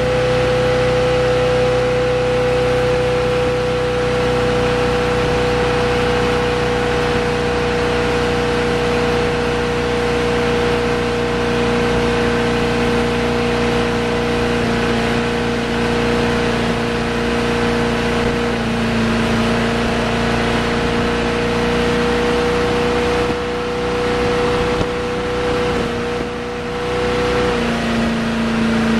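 Ski boat's engine running steadily at towing speed, a constant hum over the rushing wash of the wake and spray. The engine note shifts lower near the end.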